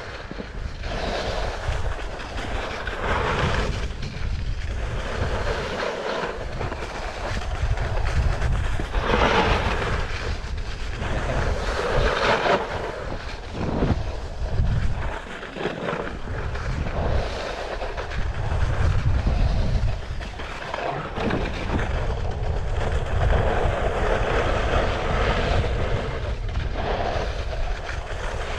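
Snowskate deck sliding and carving over packed, tracked-up snow: a rough scraping hiss that swells and fades with each turn, over a steady low rumble.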